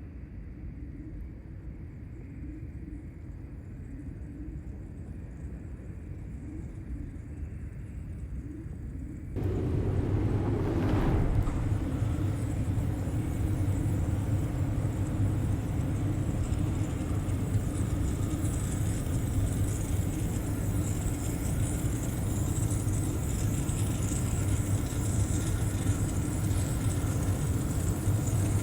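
Steady low rumble of a running vehicle. About nine seconds in it cuts suddenly to a louder, fuller rumble with a steady hum.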